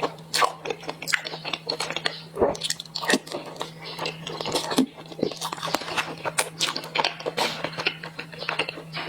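A person biting and chewing purple rice bread dipped in sesame paste: irregular wet smacks and soft crunches from the mouth.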